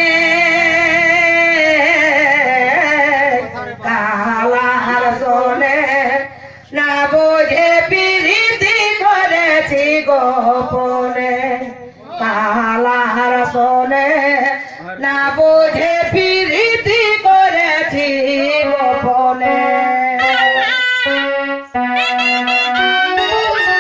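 Solo voice singing a folk song through a microphone and PA, in long held phrases that waver and bend in pitch, with brief breaths between phrases. Near the end, steadier held instrumental notes take over.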